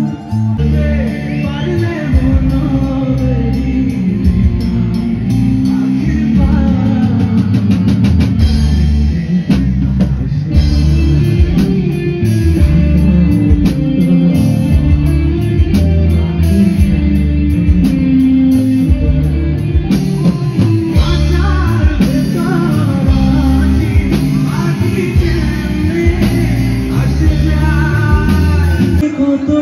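Live band music played loud through a PA system: drum kit and guitar, with a male singer singing into a microphone.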